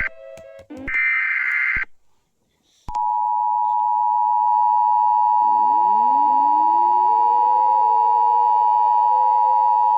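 Mock Emergency Alert System broadcast: the last burst of the warbling SAME data header, a second of silence, then the steady, loud two-tone EAS attention signal starting about three seconds in and held. About halfway through, a siren begins winding up underneath, its pitch rising slowly.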